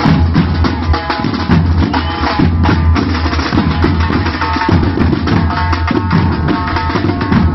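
Nicaraguan banda playing loud, dense percussion on drums, with short pitched phrases from horns over it.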